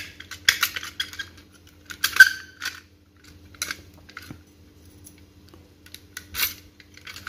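Mortise door lock body and its key cylinder being handled and tested with a key: scattered metallic clicks and rattles, with keys on a ring jingling. The loudest is a sharp, ringing metal clink about two seconds in.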